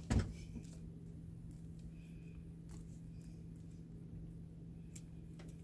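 Cables being handled: a sharp click just after the start, then a few faint ticks, over a steady low hum.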